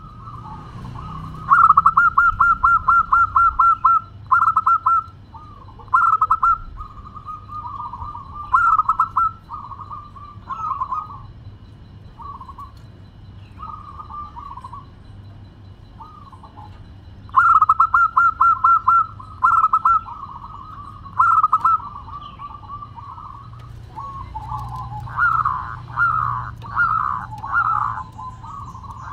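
Zebra dove (perkutut) singing: a fast run of short cooing notes followed by separate cooing phrases, with the fast run coming again about halfway through and a burst of louder coos near the end.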